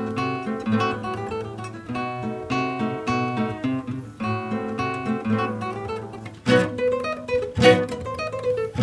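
Classical guitar played solo: a flowing line of plucked notes over bass notes, broken near the end by two loud strummed chords.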